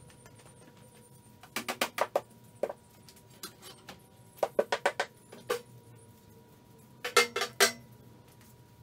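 Clattering knocks as a push broom is pulled out from a rack of upright metal bars and tubes, the handle and head knocking against the stock and the floor. The knocks come in three quick bursts, a few seconds apart, some ringing briefly.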